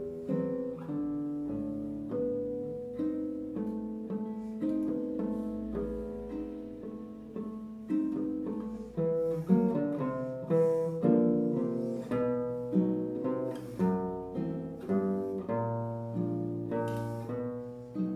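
Classical nylon-string guitar played solo: a run of plucked single notes and chords, each note starting sharply and ringing as it dies away.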